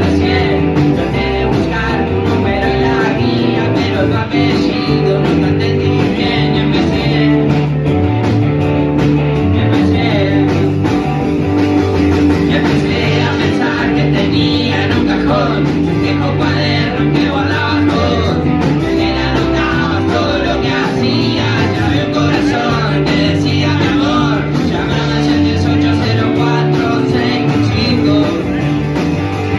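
Rock song with guitars and a bass line over a steady beat, with a voice singing over the band.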